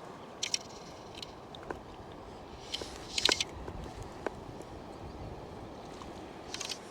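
Steady rush of river water with a scatter of short clicks and crackles of fishing tackle being handled while a hooked trout is landed, the loudest cluster about three seconds in.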